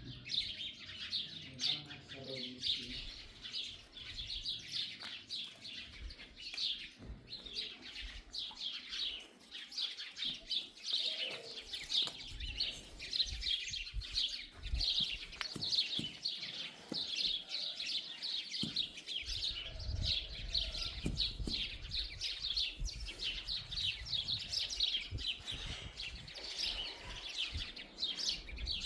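A dense chorus of small birds chirping continuously, many rapid overlapping chirps, with a low rumble for a few seconds past the middle.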